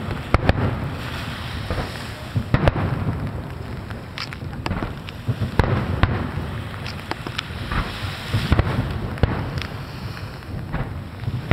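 Aerial fireworks shells bursting in quick succession, sharp bangs and cracks at irregular intervals over a continuous rumble and crackle.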